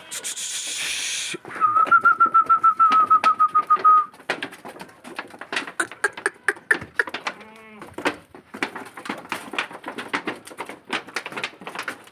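Goats on a farm. A brief hiss, then a loud trilling whistle for a couple of seconds, then many sharp clicks and knocks, with one goat bleating about halfway through.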